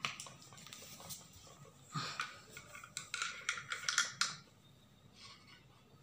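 Light clicks and clatter of a screwdriver against a ceiling fan motor's terminal block and wiring. There is a run of quick taps from about three to four seconds in, and it is quieter near the end.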